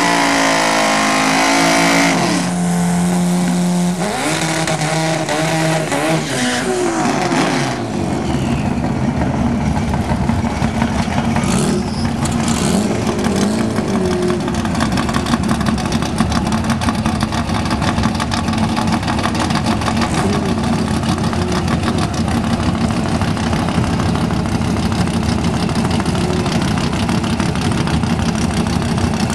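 Car engine revving, its pitch rising and falling for the first several seconds, then held at steady high revs with a rapid, even pulsing for the rest.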